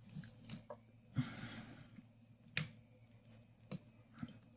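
Small sharp metal clicks from a Honda Civic steering lock assembly as the lock cylinder is worked and pulled out of the housing, with a brief scraping rustle about a second in and one louder click past the middle.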